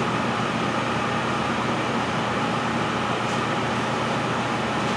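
Steady hum and hiss of room ventilation, even and unchanging.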